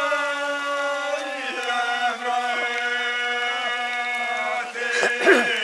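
Several voices singing a rural folk song in long held notes over a steady low drone, the pitch sliding slightly at the ends of phrases. A brief loud burst cuts in near the end.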